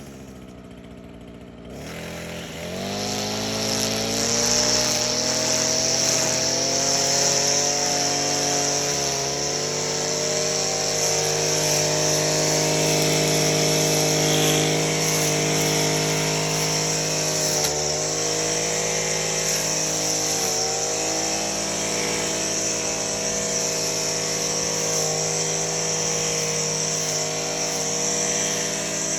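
Echo SRM-225 string trimmer's small two-stroke engine speeding up about two seconds in, then running steadily at high speed, with a few brief dips in speed.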